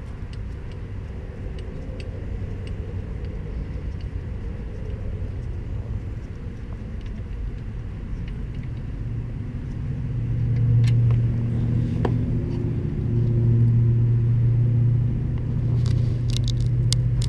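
A motor vehicle's engine rumbling steadily, getting louder about ten seconds in, with a few faint clicks.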